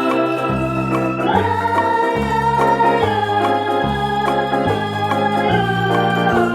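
Background music: sustained chords over a bass line that steps to a new note about every second.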